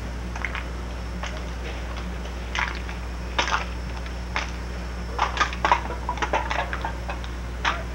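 Scattered short clicks and clinks over a steady low hum, with a quick cluster of them about five to six and a half seconds in.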